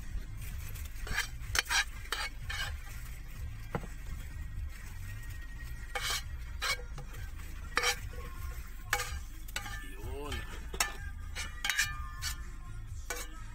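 White plastic rice paddle scraping and knocking against a pan and a plastic food container as fried rice is scooped and transferred. The strokes come irregularly, in clusters, over a steady low hum.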